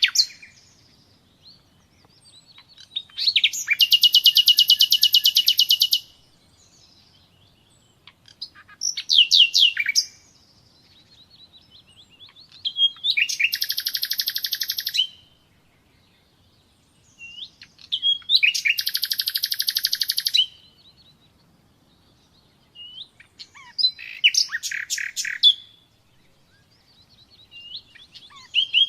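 Common nightingale singing: loud phrases of fast, evenly repeated notes, each lasting one and a half to three seconds, with pauses of a few seconds between them.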